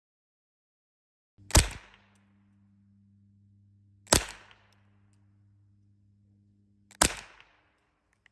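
Three gunshots about two and a half seconds apart, each a sharp crack with a short fading tail, fired at a squirrel.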